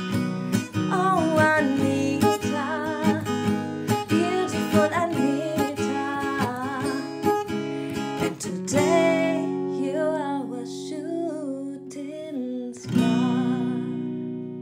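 Strummed acoustic guitar closing out a self-written birthday song, under a wordless wavering vocal melody. The song ends on a last strummed chord about thirteen seconds in, which rings out and fades.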